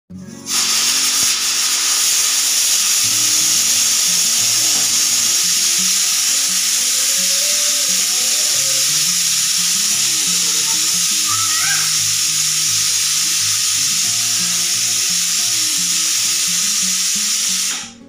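Pressure cooker whistle: steam blasts out through the weighted valve on the lid in one long, loud, steady hiss, starting about half a second in and cutting off suddenly near the end, as the cooker vents its built-up pressure.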